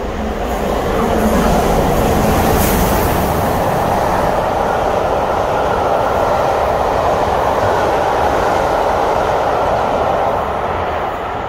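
Steam-hauled passenger train running through a station at speed. A rushing, rumbling noise swells as the locomotive comes by, loudest with a brief hiss about two to three seconds in, then holds steady as the carriages roll past and eases off near the end.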